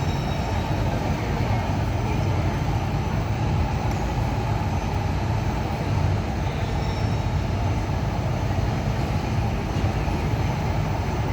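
Large indoor waterfall, Jewel Changi's Rain Vortex, water falling in a steady, deep rushing noise with no let-up.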